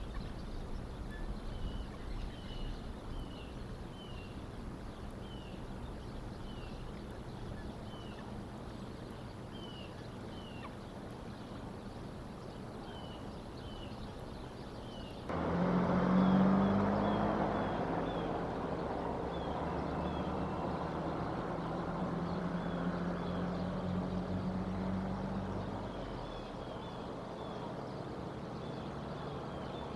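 Outdoor ambience with a bird's short, high chirps repeating about once a second. About halfway through, a motor vehicle's engine hum comes in suddenly, holds for about ten seconds, then fades near the end.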